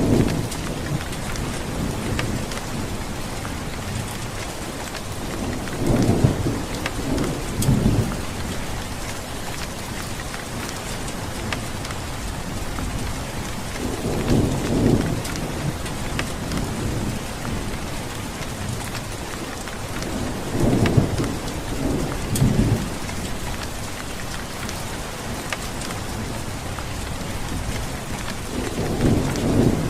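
Steady heavy rain falling, with low rolls of thunder rumbling up every six to eight seconds.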